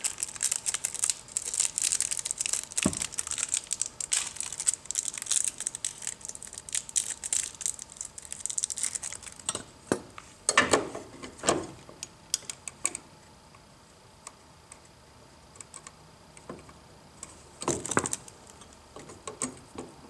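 Crinkling and rustling of handled material for the first nine seconds or so, then a few sharper knocks and scrapes as a white metal outlet cover plate is fitted over the outlet box, with a quiet spell between them.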